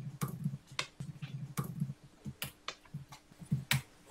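Typing on a computer keyboard: an irregular run of about a dozen keystrokes.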